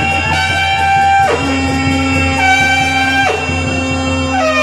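Naumati baja wedding band music: a wind instrument plays a slow melody of long held notes, sliding down in pitch between some of them, over a steady low hum.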